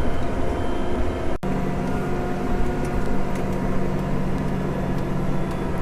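New Holland tractor's engine running steadily under load while pulling a plough. About a second and a half in the engine note changes abruptly to a new steady hum.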